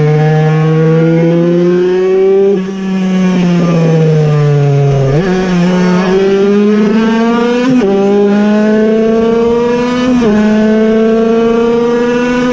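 Air-cooled 50cc piston-port two-stroke engine of a Puch Cobra racing moped at full throttle, heard from on board. Its pitch falls while backing off through a bend, jumps back up about five seconds in, then climbs steadily with a sudden drop at each of three upshifts.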